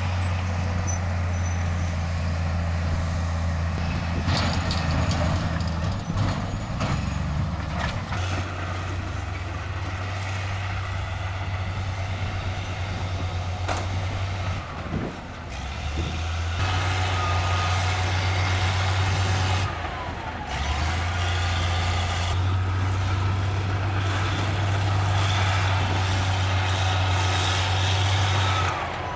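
Bulldozer's heavy diesel engine running steadily under load, dipping briefly twice midway, with scattered metallic clanks in the first third and a thin high whine in the second half.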